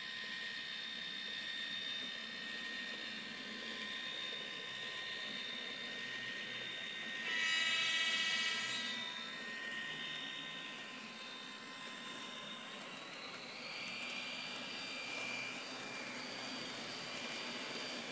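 N-scale Renfe class 333 diesel locomotive model's DCC sound decoder playing diesel engine sound through its small speaker, with a steady high whine. About seven seconds in, a louder horn blast lasts about a second and a half, and later the engine sound rises in pitch.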